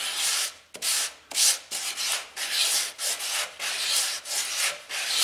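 P180 sandpaper on a cork block rubbed back and forth by hand over a chisel-rounded wooden corner, smoothing out the last lumps of the curve: about ten brisk rubbing strokes, roughly two a second.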